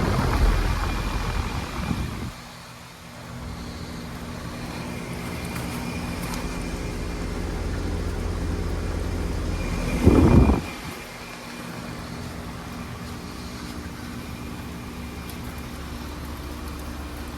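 Outdoor heat pump units running with a steady low hum. A brief loud rush breaks in at the start and again about ten seconds in.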